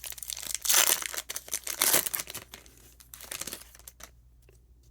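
A 1992 Donruss The Rookies baseball card pack's wrapper being torn open and crinkled by hand, in irregular rustling bursts that are loudest about one and two seconds in and die away near the end.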